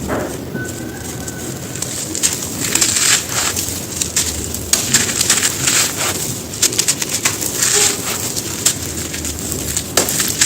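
Dry, crumbly stone-like chunks being crushed and crumbled by hand, giving a dense run of irregular crunches and crackles. A bird coos now and then in the background.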